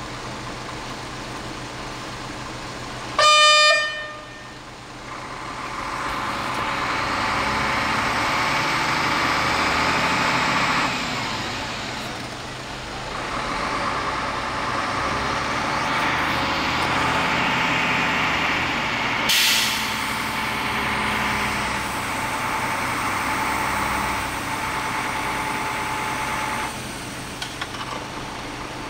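A short single horn blast about three seconds in, the loudest sound, over steady engine noise that swells about five seconds in, dips briefly, and drops back near the end; a sharp click sounds about halfway through.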